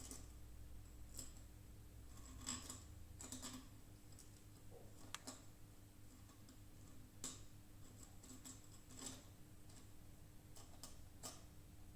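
Faint, irregular clicks and light taps, roughly one a second, over near silence with a faint steady hum.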